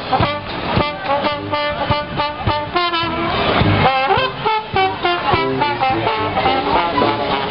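Brass band music: horns playing a tune of held notes over a steady drum beat.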